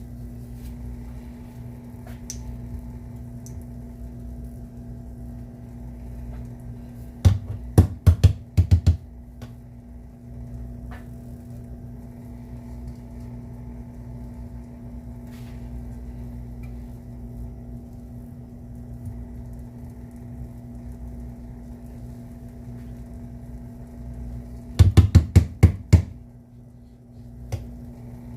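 Two quick runs of five or six sharp knocks, like utensils tapping against dishes while plating, over a steady low kitchen hum.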